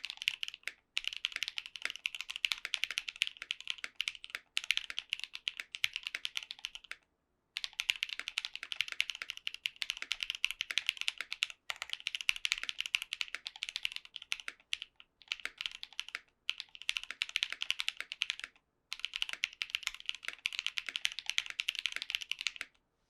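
Fast typing on a mechanical keyboard with lubed Techno Violet linear switches (58 g double spring, long-pole stem, full nylon housing) in an FR4 half plate, with ePBT doubleshot ABS keycaps: a rapid stream of key clacks in bursts of a few seconds separated by brief pauses, stopping just before the end.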